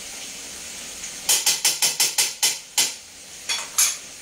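Metal spatula clinking against a steel frying pan as the curry is stirred and scraped: a quick run of about nine sharp strikes in a second and a half, then two more. A steady frying hiss runs underneath.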